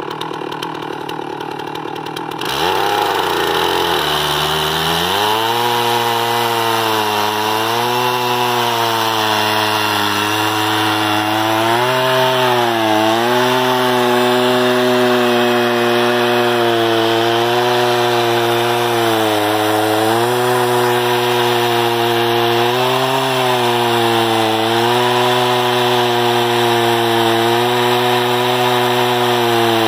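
Gas chainsaw in an Alaskan chainsaw mill idling, then throttled up about two and a half seconds in. It then runs at full revs, ripping lengthwise through a log, its pitch dipping briefly now and then under the load of the cut.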